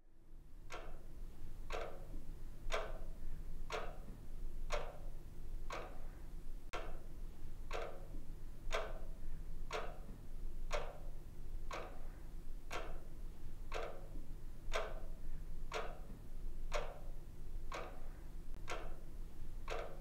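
A clock ticking steadily, about one tick a second, over a low steady hum.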